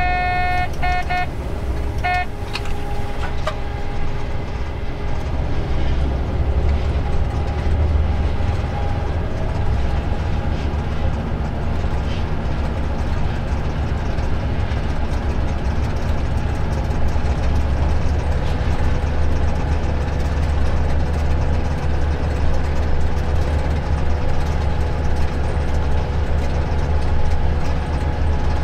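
Diesel engine of a Vossloh G 1206 locomotive running steadily under the cab with a deep drone. A few short pitched toots sound in the first two seconds.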